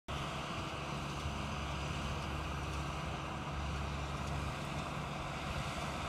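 John Deere 6330 tractor's diesel engine running steadily under load, driving a Welger RP 245 round baler as it picks up and bales haylage, with a low, even hum.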